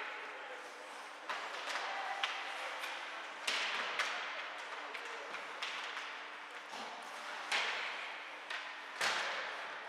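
Ice hockey play: several sharp clacks of sticks and puck on the ice, each followed by the hiss of skate blades scraping and fading away, over a faint steady rink hum.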